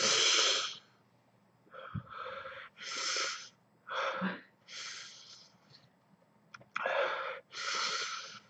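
A man breathing hard and fast through his open mouth, a string of sharp hissing breaths about one a second with a short pause near the middle. He is trying to cool a mouth burning from a ghost chili pepper.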